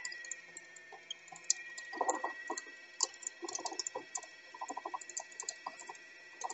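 Brother XR3774 sewing machine's motor running to wind a bobbin: a steady high whine with many irregular light clicks and ticks, as the bobbin nears full.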